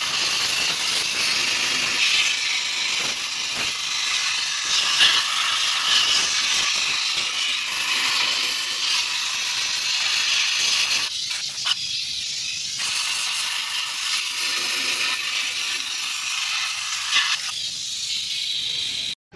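Compressed-air blow gun hissing steadily as it blasts rusty water and grime off an engine block deck with the cylinder head removed. The blast thins briefly twice, about eleven and seventeen seconds in.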